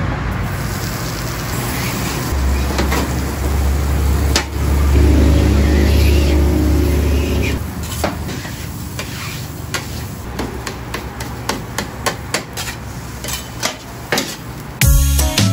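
Metal spatulas scraping and clacking on a hot flat-top griddle while food sizzles; the clacks come thick and fast in the second half. A low rumble runs underneath for a few seconds near the start.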